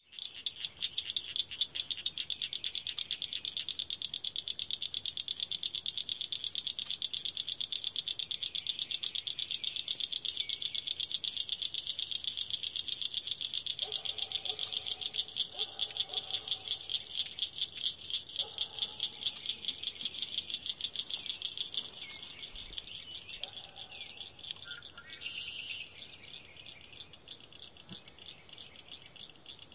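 A chorus of peeping frogs and insects: a dense, rapid pulsing trill over a steady high whine. The trill fades about three quarters of the way through. A few lower calls come midway, and a short rising call near the end, taken for a red-winged blackbird.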